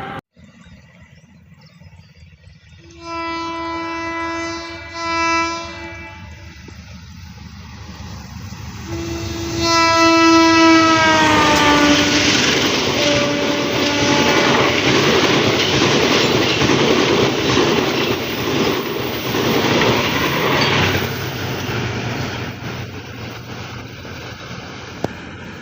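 Train horn blown twice: a steady blast about 3 seconds in, then a longer one about 9 seconds in that drops in pitch as the train comes past. The train then runs by with loud wheel and rail noise that slowly fades toward the end.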